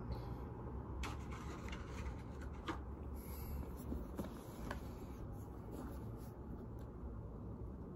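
Faint rubbing and light scratching of a cotton swab and fingers working over a coated-canvas handbag, with a few small clicks.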